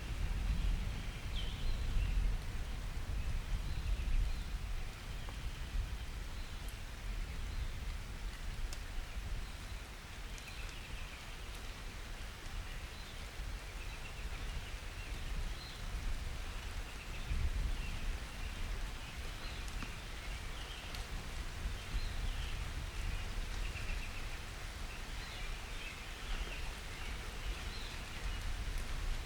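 Steady rain falling in a summer thunderstorm, with a steady low rumble underneath and faint high chirping calls throughout.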